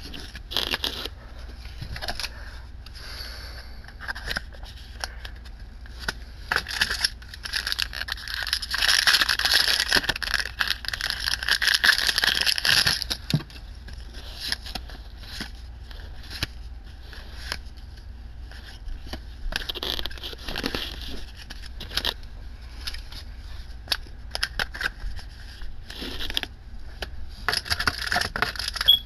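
Hands handling a stack of Yu-Gi-Oh! trading cards: cards sliding, flicking and clicking against one another as they are flipped through and laid down. A longer stretch of dense rustling and scraping runs from about seven to thirteen seconds in.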